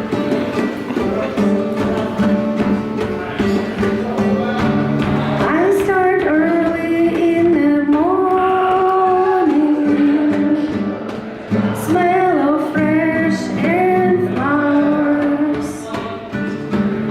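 A woman singing a slow song with guitar accompaniment and a steady tapped beat. The voice comes in about six seconds in, after an instrumental opening, and breaks briefly near twelve seconds.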